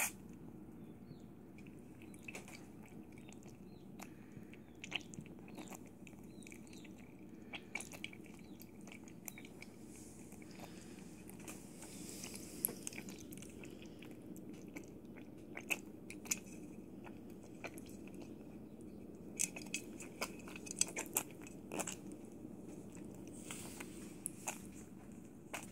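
A three-day-old mini piglet lapping and sucking milk from a plate as it learns to drink from a saucer: soft, irregular wet smacking clicks, over a low steady hum.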